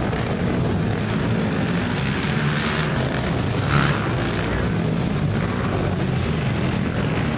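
Engines of several racing quads (ATVs) running and revving around a dirt motocross track, a steady drone with a brief louder burst about four seconds in.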